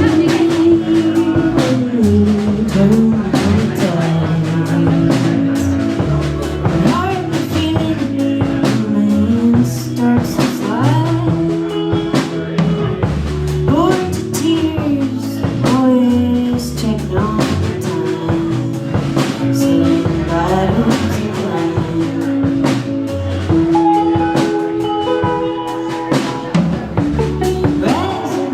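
A rock band playing live, with a drum kit, including rimshots, and guitar.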